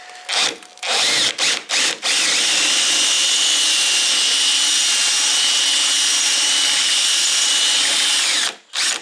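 Cordless drill boring into a spot weld in the sheet steel of a car's front mudguard, to cut only through the first layer and free the joined panel. It starts with a few short stop-start bursts, then runs steadily with a constant whine for about six seconds and stops shortly before the end.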